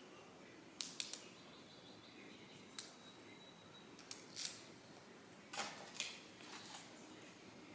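A series of short crisp clicks and brief paper rustles, the kind a book makes when its pages are handled and turned. The loudest rustle comes a little past the middle.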